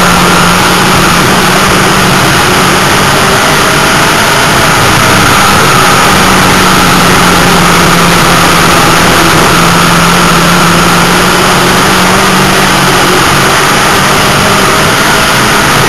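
Dirt-track race car engine running hard under racing, very loud from inside the car, its pitch rising and dipping a little.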